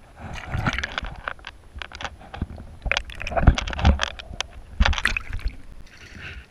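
Water splashing and sloshing close by, with many irregular sharp knocks and low thuds.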